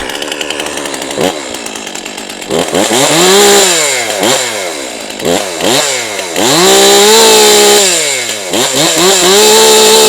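STIHL MS 400 C two-stroke chainsaw, just started, idling and then revved repeatedly: several quick throttle blips with the pitch rising and falling, and two longer stretches held at full throttle near the middle and the end.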